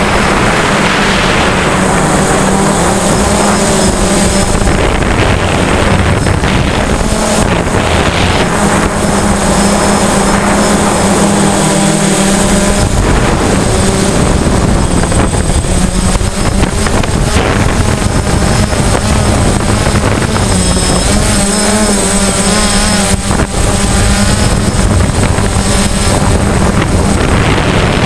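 DJI Phantom quadcopter's electric motors and propellers running in flight, heard from on board: a loud, steady buzzing hum with a pitch that shifts slightly up and down as the motors change speed, mixed with rushing air noise.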